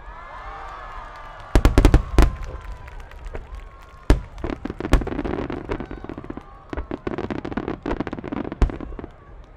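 Aerial firework shells of a star mine display: several whistles glide down in pitch at the start, then a quick cluster of loud booms about two seconds in, followed by a run of sharp bangs and crackling bursts.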